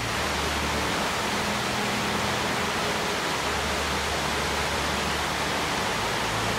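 Wallace Falls rushing down its cliff: a steady, unbroken noise of falling water.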